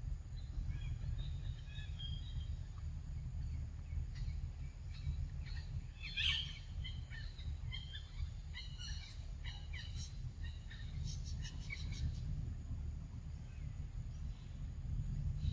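Outdoor forest ambience: birds giving scattered short chirps, busiest in the middle, over a steady low rumble and a constant thin high tone.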